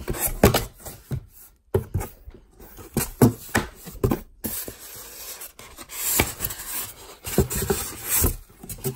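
Cardboard packing and polystyrene foam inserts being handled: irregular rubbing and scraping of card and foam, with a few sharp knocks, as the packaging is lifted and shifted.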